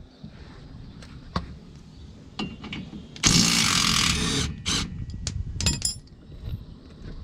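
Power tool running for about a second on a rear shock mounting bolt, amid scattered short metallic clicks and knocks of tools.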